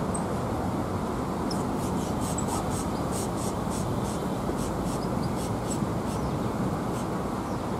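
Llama chewing and rustling dry hay in a wooden trough: crisp crunching about four times a second, starting about a second and a half in, over a steady low rumble of background noise.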